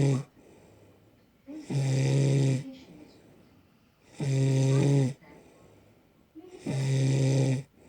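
A woman snoring in her sleep: the tail of one snore at the start, then three loud snores about every two and a half seconds. Each snore lasts about a second and is a steady pitched tone with a hiss over it, with much quieter breathing between.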